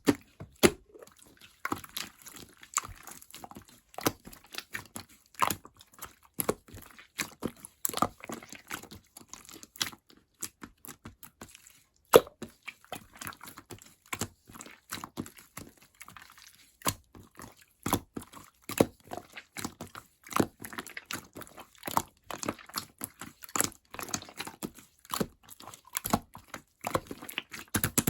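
Slime being squished, pressed and poked by hand, giving irregular sticky clicks and crackles.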